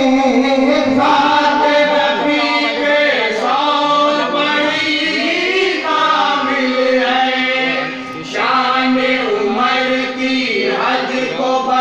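Men singing a devotional kalam (Urdu religious poem) together, the melody bending and sustained over a steady held note, with a short break in the singing about eight seconds in.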